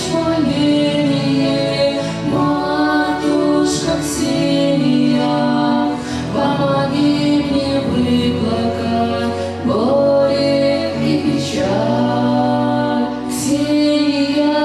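A woman singing an Orthodox spiritual song into a microphone, with musical accompaniment.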